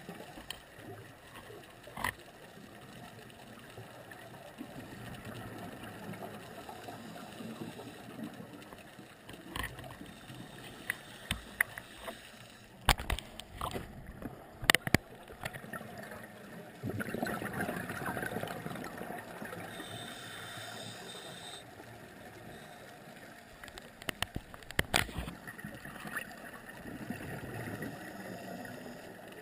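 Muffled underwater sound through an action-camera housing: scuba regulator breathing, with swells of exhaled bubbles rushing past the middle and again near the end. Several sharp clicks and knocks break in now and then.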